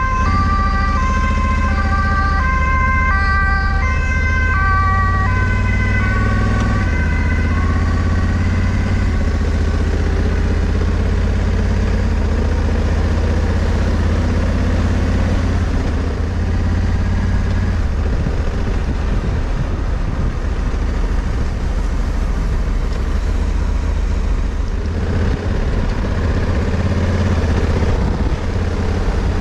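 A two-tone emergency vehicle siren alternates between a high and a low note and fades out within about eight seconds. Under it, and through to the end, the Honda Africa Twin CRF1100L's parallel-twin engine runs steadily with wind noise while riding.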